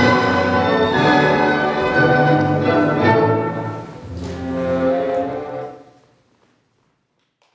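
Recorded orchestral classical music accompanying a ballet dance. It ends on a held final chord that fades out about five and a half seconds in, leaving silence.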